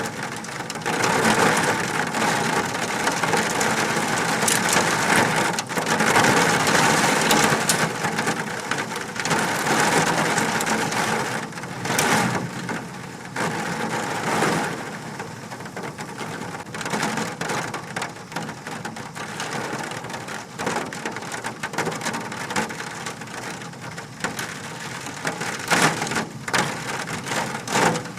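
Large hailstones coming down hard, a dense clatter of many impacts. It is heaviest in the first half and eases after about fifteen seconds, with a few sharper, louder strikes.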